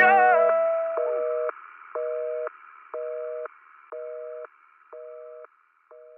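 Telephone busy signal: a North American-style two-tone beep, half a second on and half a second off, repeating about once a second and growing quieter with each beep as it fades out. In the first second the song's last sung note and instruments die away.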